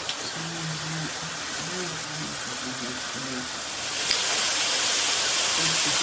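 Handheld shower head spraying water in a steady hiss, which gets louder and brighter about four seconds in.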